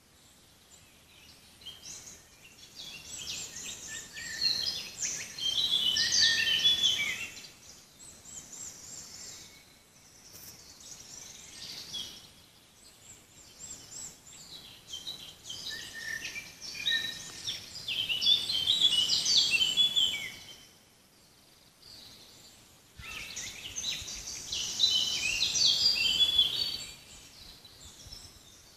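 Songbirds singing in a forest: three long bursts of rapid, high twittering song, each lasting a few seconds, with fainter calls in the gaps.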